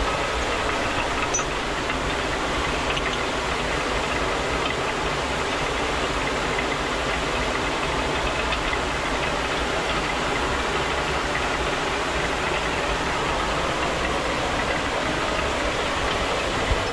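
A traditional Nepali water mill running: a steady rush of water with the continuous rumble of the turning millstone.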